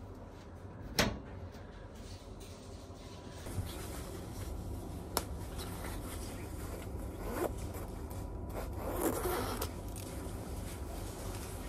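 A metal locker door clicks shut about a second in, then the zip of a quilted puffer gilet is pulled open with a short rasp near the end, over a steady low hum.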